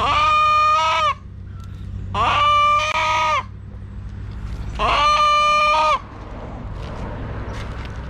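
Rooster crowing: three short, even calls, each about a second long and a couple of seconds apart, all alike in shape.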